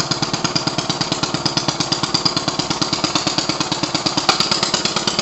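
Small single-cylinder lawn mower engine running with its muffler removed, giving a steady, rapid, even popping from the open exhaust.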